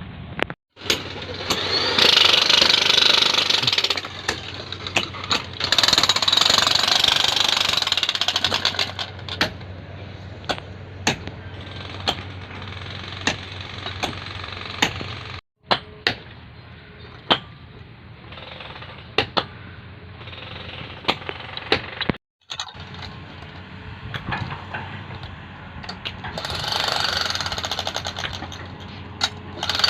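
Excavator working concrete piles: the diesel engine runs with a low hum under many sharp, irregular knocks of impact on the piles. Loud rushing surges come and go, near the start and again near the end.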